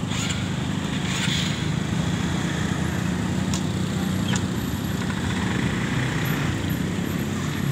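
A motor running steadily with a low hum, with two faint clicks in the middle.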